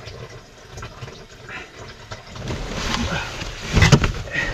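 Rustling and shuffling of someone crawling through a cramped loft among lagged pipes and insulation, getting busier about halfway through, with a sharp knock shortly before the end.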